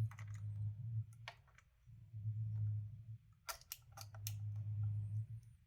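Small sharp clicks and taps of hands handling the instrument cluster's plastic parts and needle, a cluster of several about three and a half seconds in, over an on-and-off low hum.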